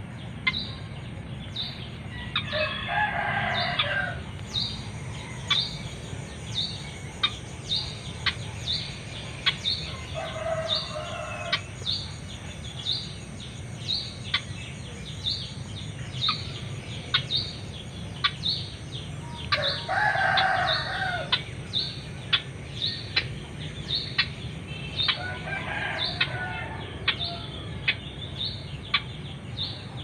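A rooster crowing four times, each crow lasting one to two seconds. Underneath runs a steady series of short, sharp high chirps about every 0.6 seconds and a low steady hum.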